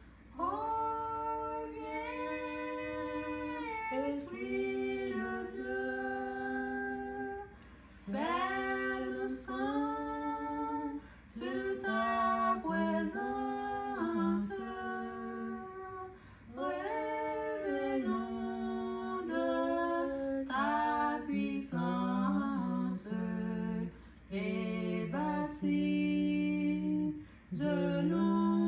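A woman singing unaccompanied, in long held notes with short pauses between phrases.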